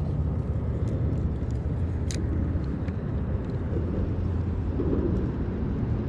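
Steady low rumble of road traffic crossing the highway bridge overhead, with a single sharp click about two seconds in.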